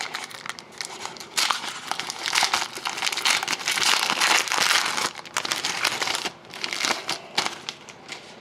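A 2011-12 Panini Titanium hockey card pack's wrapper being torn open and crinkled by hand. The crackling is densest in the first half and thins to scattered crinkles near the end.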